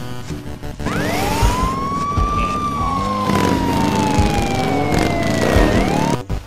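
A siren wailing over background music. About a second in it rises quickly, then falls slowly for several seconds, and it starts to rise again near the end, with other sound effects mixed in underneath.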